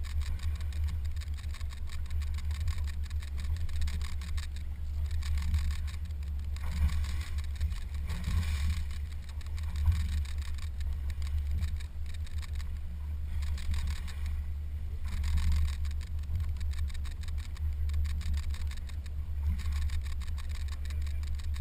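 Fishing boat under way: a steady low rumble of its motor with a rushing hiss over it that swells and fades every few seconds.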